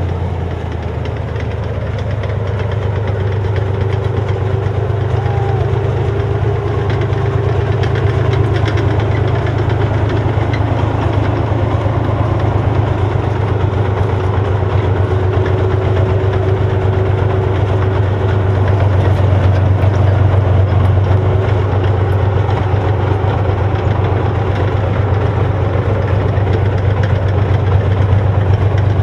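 A tank's engine running steadily, with a strong deep hum under a rough mechanical drone.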